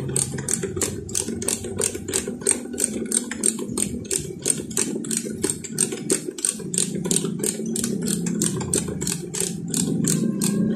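Socket ratchet wrench clicking steadily, about four clicks a second, as it is swung back and forth to run a nut onto the shock lifter bolt. A low steady hum sits underneath.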